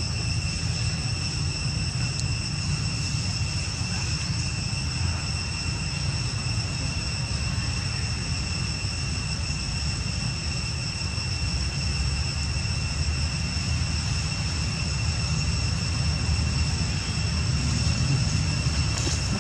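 Outdoor ambience: insects keep up a steady high-pitched drone over a constant low rumble.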